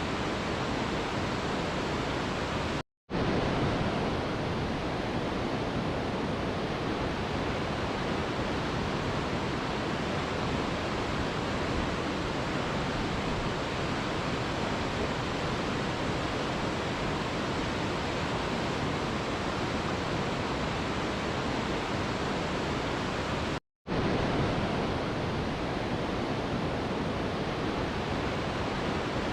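Steady rushing of a waterfall, an even roar of falling water. It drops out to silence for a split second twice, about three seconds in and again about twenty seconds later.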